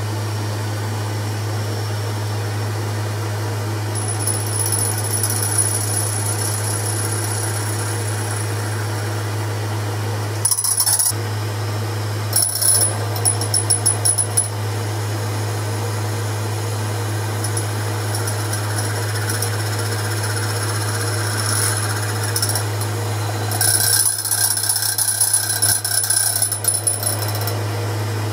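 Boxford lathe running with a steady low hum, taking a gentle facing cut on a thin aluminium plate held by its 3mm stud in an ER20 collet. A thin high whine with crackle comes and goes as the tool bites, about four seconds in, twice around ten to fourteen seconds, and again near the end.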